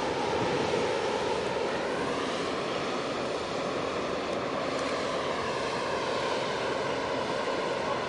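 Steady drone and rush of a large container ship passing close, with a faint whine that bends gently up and down about halfway through.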